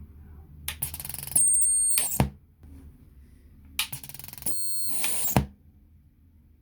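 PreSonus Eris 3.5 studio monitor producing a burst of loud hiss with high-pitched whistling tones, ending in a sharp pop, twice about three seconds apart. This is the faulty noise it makes on power-up instead of clean audio.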